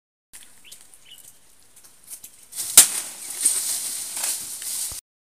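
A sharp whack from a swung wooden stick a little past halfway, followed by about two seconds of rustling and swishing through dry leaves and brush.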